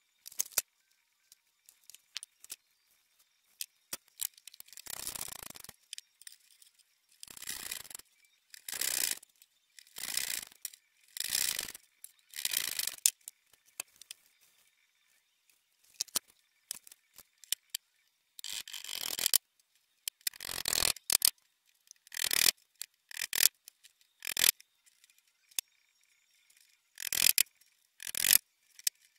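Repeated short bursts of rustling and scraping, about a dozen spread out with pauses between them, from plastic hardware bags and particleboard desk parts being handled during flat-pack assembly. There are a couple of sharp clicks right at the start.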